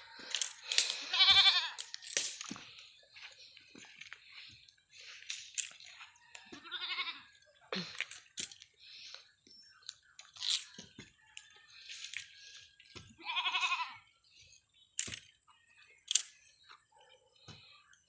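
Goats bleating three times, each a quavering call under a second long, the first the loudest. Scattered sharp crunches and snaps run between the bleats.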